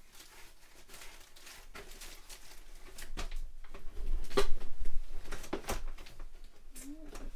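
Someone rummaging off-camera for a sheet of cardstock: scattered knocks and handling noises that grow loudest about four to five seconds in, then a short hum near the end.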